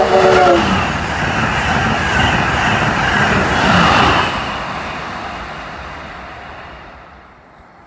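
Amtrak Acela Express high-speed electric trainset passing at speed. Its horn sounds briefly at the start, dropping in pitch as the train goes by, then a loud rush of wheels and air that peaks about four seconds in and fades away.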